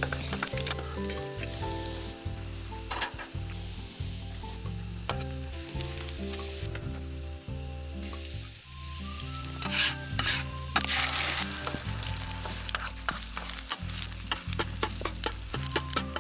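Food frying, sizzling with frequent sharp crackles, under background music with sustained chords and a low beat.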